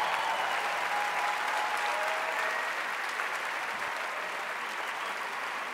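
Large theatre audience applauding, a standing ovation that slowly fades.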